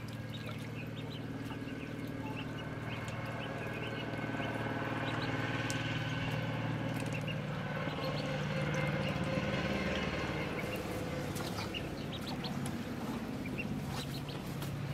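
Ducklings peeping in short high chirps, most often in the first few seconds, over a steady low engine hum that grows louder around the middle and eases off again.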